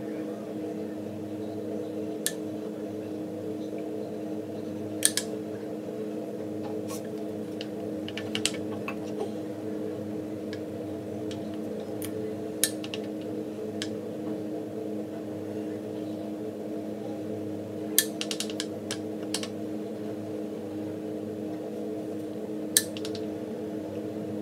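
Scattered light clicks and taps of makeup containers and applicators being handled, some in quick little clusters, over a steady low hum.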